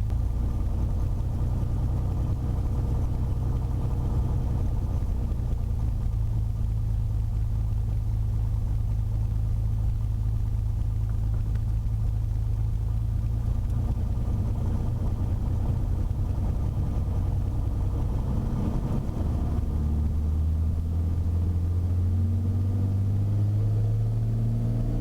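Beechcraft Bonanza's single piston engine and propeller running at takeoff power, a steady low drone; its pitch shifts about 19 seconds in.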